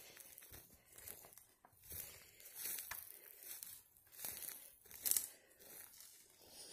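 Faint, irregular footsteps crunching through dry leaf litter, the loudest step about five seconds in.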